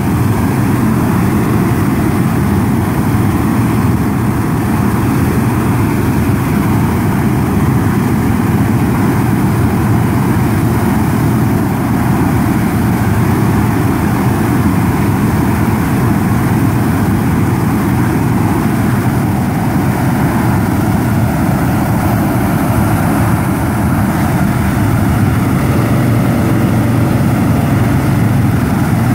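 A row of propane flame-weeding burners on a tractor-drawn boom firing with a loud, steady rush, over a tractor engine running steadily.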